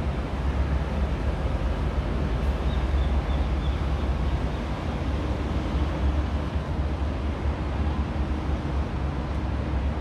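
Steady low outdoor background rumble, with a few faint, high bird chirps about three seconds in.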